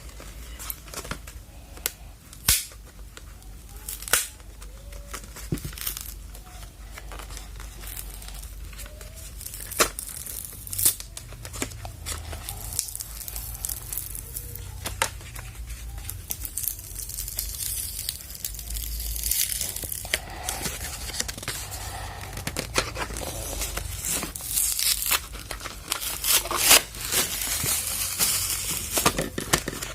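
Parcel packaging being torn open and crinkled by hand: repeated rustling, ripping and sharp crackles, growing denser and louder over the last ten seconds or so.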